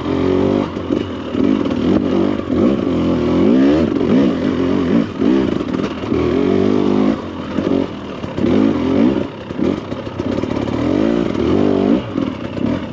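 Husqvarna TE300 Pro's fuel-injected two-stroke single revving up and falling back again and again as the dirt bike is ridden over a rough trail, with clatter from the bike over rocks and brush.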